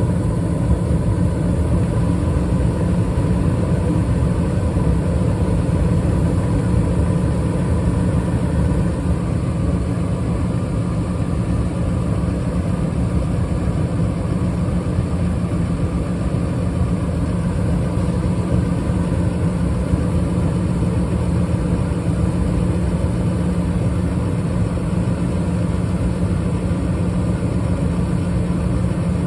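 Bryant gas furnace running with its blue burner flames lit: a steady low rumble with a constant hum.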